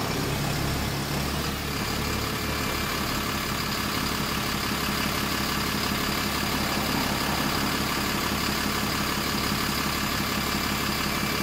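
Steady diesel engine drone of buses at a roadside stop: a single-decker bus passing at the start, then a Scania-engined Caetano Levante 3 coach drawing in towards the stop.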